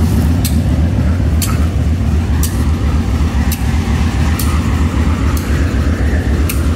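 Pakistan Railways diesel-electric locomotive idling close by: a loud, steady low engine drone, with a sharp tick about once a second.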